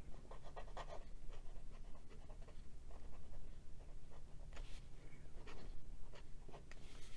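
A Moonman S5 fountain pen with a 1.0 stub nib writing on paper: a run of short, quick nib scratches as a word is written in cursive.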